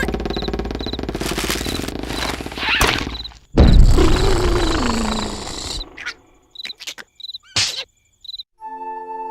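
Cartoon soundtrack: cricket chirping at an even rhythm over a loud low rumble, cut by a sudden loud burst about three and a half seconds in that carries a sound falling in pitch, then a few short squeaks and a held music chord near the end.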